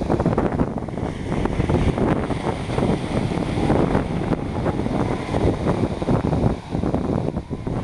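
Wind buffeting the microphone over waves breaking and washing onto the shore.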